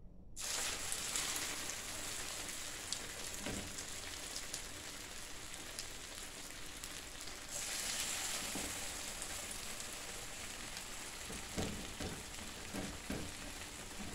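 Breaded corn cobs on skewers frying in shallow hot oil: a steady sizzle that starts suddenly as the first cob goes in and swells louder about halfway through as the second cob is added. A few soft knocks come near the end.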